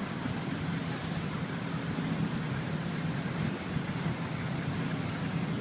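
Steady low engine hum of a boat under way, mixed with an even rushing noise.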